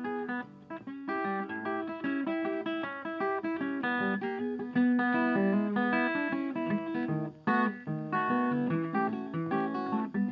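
Background music: an instrumental of plucked guitar notes in a steady flow.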